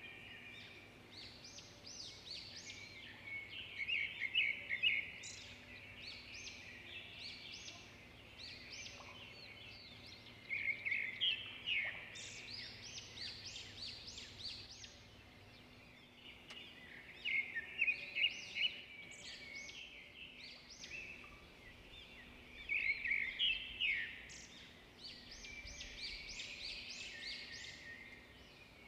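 Small birds chirping, high quick calls coming in repeated bursts with quieter chirping between them.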